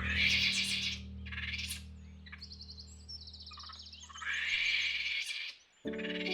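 Monkey calling in a few short, high screeching bursts, with thin high chirps between them, over a steady low background drone. Near the end the drone and calls stop briefly and new music notes begin.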